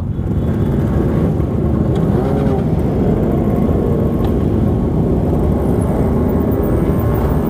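Many sport motorcycle engines running together in a packed group moving off at walking pace, a steady, dense rumble, with the rider's own Kawasaki Ninja close to the microphone.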